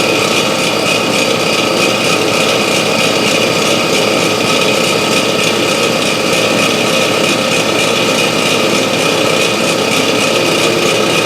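A loud, steady motor or small engine running without a break, holding an even pitch throughout.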